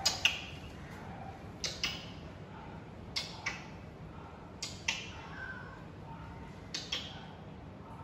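Sharp clicks in pairs, five pairs about a second and a half apart, each with a brief ringing tail; the first pair is the loudest.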